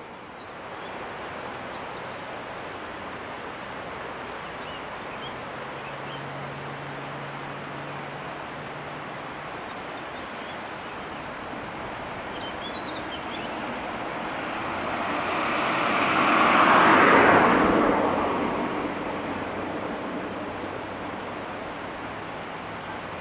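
A vehicle passing by: its noise swells over a few seconds to a loud peak about two-thirds of the way in, then fades away, over a steady rushing background.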